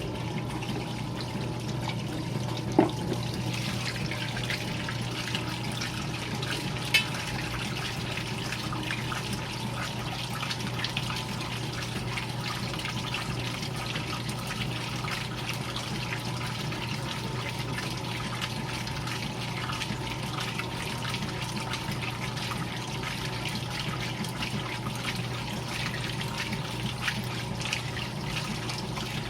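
GE Filter-Flo washing machine running with water in the tub: a steady water swishing over a constant low electrical hum, with two sharp clicks about 3 and 7 seconds in.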